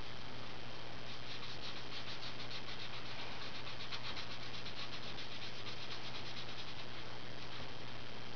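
Crayola Super Tips felt-tip marker rubbing back and forth on paper in quick, even strokes while colouring in an area, strongest from about a second in until about seven seconds in.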